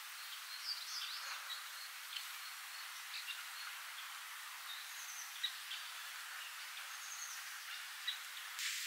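Soft spring rain hissing steadily on grass, with small birds giving short high chirps now and then and a few brief ticks of drops. Near the end the hiss becomes brighter and more even.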